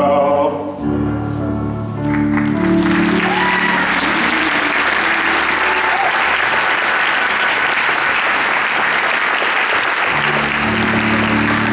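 A held instrumental chord closes the song, and about two seconds in a theatre audience breaks into sustained applause. The accompaniment comes back in under the clapping near the end.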